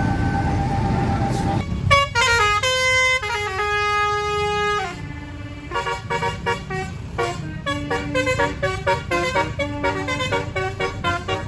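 Basuri telolet musical air horn on a tour bus playing a tune: starting about two seconds in, a few held notes step down in pitch, then a quick run of short choppy notes follows. Before the horn starts there is a low rumble.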